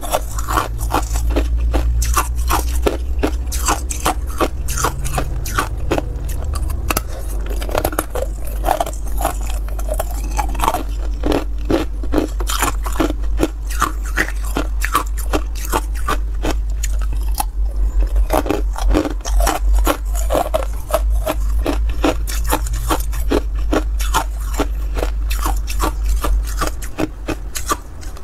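Ice cubes crunched and chewed between the teeth in rapid, dense crackles, mixed with ice scraping and clinking as cubes are pried out of a plastic ice tray. A steady low rumble runs underneath and stops shortly before the end.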